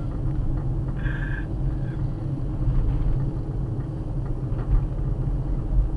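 Steady low rumble of a car's engine and road noise, heard inside the cabin while driving. A short tone sounds about a second in.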